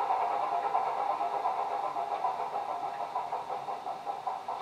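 Diesel engine sound from a DCC sound decoder in a Heljan OO gauge Class 27 model locomotive, playing through the model's small loudspeaker. The engine runs steadily and slowly fades.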